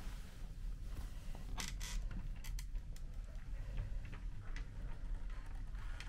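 A few light clicks and knocks, most of them between about one and a half and two and a half seconds in, over a steady low hum.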